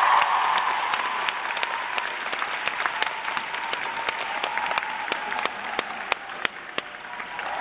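Arena audience applauding, with sharp individual claps close to the microphone, slowly dying down toward the end.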